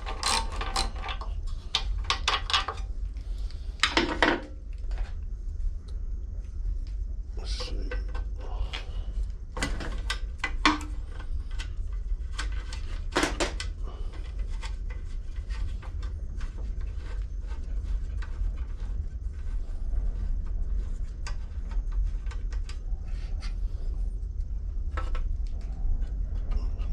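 Scattered metal clinks and knocks of hand tools and small parts being handled while the carburetor is taken off a Briggs & Stratton lawn mower engine, busiest early on and through the middle, over a steady low hum.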